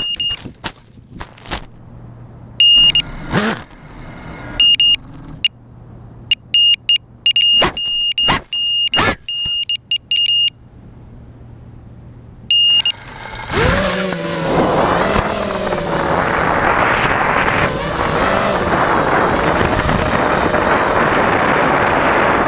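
5-inch FPV quadcopter sitting after a crash, recorded on its onboard camera: a few short high beeps and sharp clicks over a quiet background. About 13 seconds in, its brushless motors spin up with a rising whine and then run steadily as it takes off and flies.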